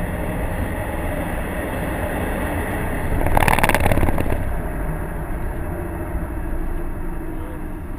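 Cabin noise of a 2011 Subaru WRX at speed on a wet track: its turbocharged EJ255 flat-four runs steadily under the road and tyre noise. About three seconds in, a louder swish lasting about a second comes as the windscreen wipers sweep across the glass.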